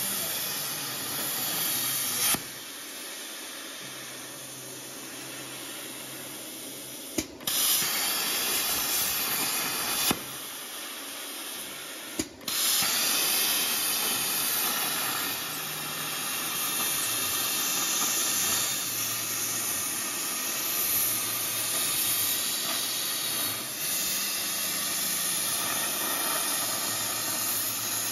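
Plasma cutter arc on a CNC cutting table, hissing steadily as it cuts metal plate. Twice it drops to a quieter hiss for a few seconds, and each drop and return comes with a sharp pop.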